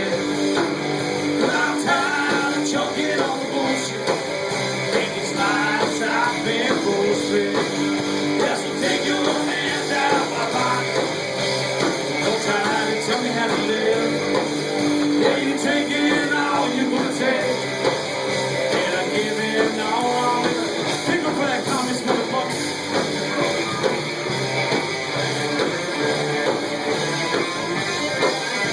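A band playing a rock-and-roll song: a singer over guitars.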